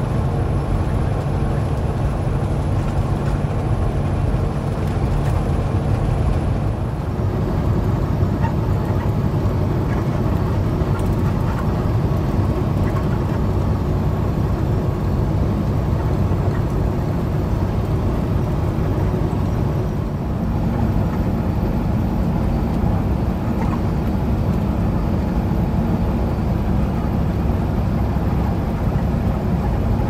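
Steady rush of wind blowing past a semi-truck's cab at highway speed, over the low drone of the truck's engine and tyres on the road. The low drone shifts in pitch about seven seconds in.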